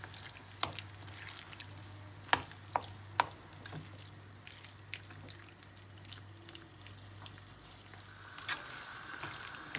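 Chicken pieces frying in an onion-tomato masala in a pan, with a faint sizzle. A spoon or spatula stirs them and clicks against the pan several times.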